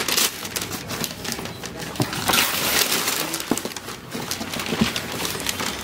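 Gift wrapping paper rustling and crinkling as it is handled and pulled, with scattered small clicks and taps, loudest a couple of seconds in.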